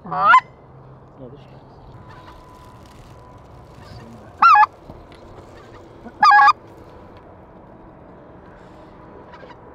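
Specklebelly (white-fronted) goose call blown in three short, loud bursts: one right at the start, one about four and a half seconds in and one about six seconds in. Each burst is a quick run of high notes, calling to a goose flying in toward the blind.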